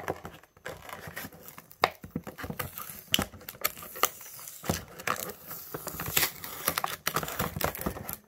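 Plastic blister packaging and cardboard backing of a toy package being cut open with a blade and handled, making irregular sharp clicks and short scraping and crinkling noises.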